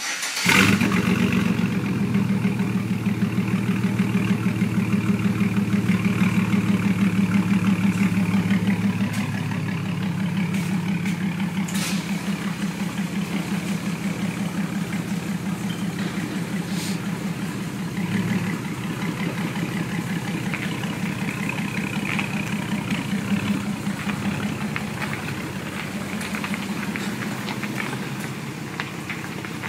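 2008 GMC Sierra pickup with a straight-piped exhaust starting up and idling loud and unmuffled, with a steady pulsing exhaust beat. The idle is raised at first and drops to a lower, calmer idle about nine seconds in.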